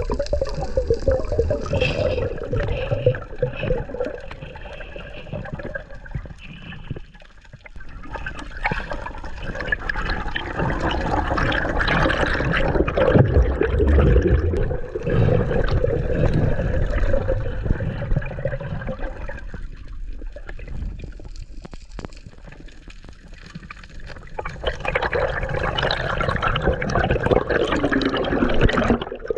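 Underwater water noise picked up by an action camera: rushing and gurgling water that swells and fades, dropping quieter twice.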